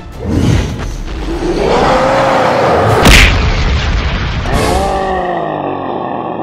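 Cartoon sound effects over background music: a rising power-up tone, then a loud boom about three seconds in, followed by a falling tone.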